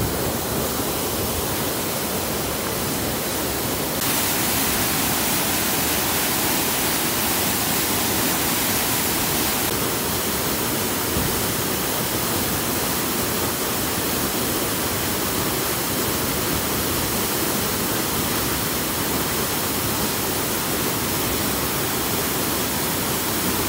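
Mountain stream rushing steadily over its bed, its hiss growing brighter from about four seconds in to about ten seconds in.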